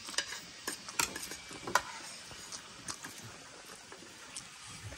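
Spoons clinking and scraping against plates and bowls while people eat: a scatter of sharp clicks, thickest in the first two seconds.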